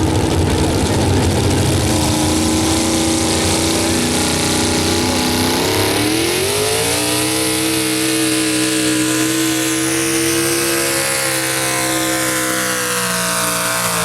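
Pulling truck's engine running loud, its revs climbing sharply about six seconds in and then held high, dipping a little near the end.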